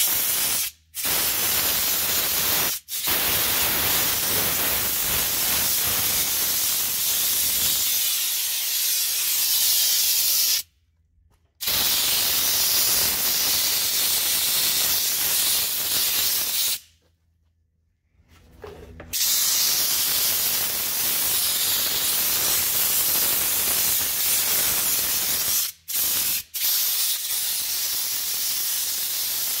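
Compressed-air blowgun on a shop air hose blasting with a loud, steady hiss. It cuts off abruptly several times as the trigger is let go: a few brief breaks and two longer pauses of a second or two.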